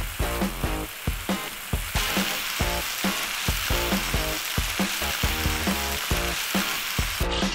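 Beef short ribs sizzling on a hot grill, the sizzle growing louder about two seconds in, over background music with a steady beat.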